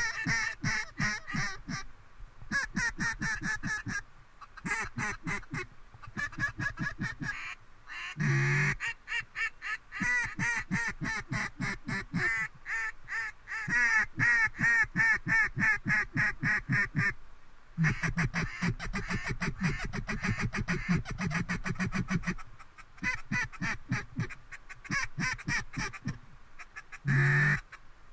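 Mallard duck call blown in long runs of quacks and fast chattering chuckles, many notes a second, broken by short pauses, the calling used to bring ducks in to decoys.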